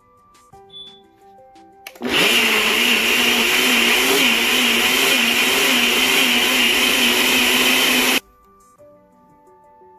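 Ninja Auto-iQ personal blender motor running for about six seconds, blending aloe vera gel to a froth, with a steady whirring hum that wavers slightly in pitch. It starts about two seconds in and cuts off sharply.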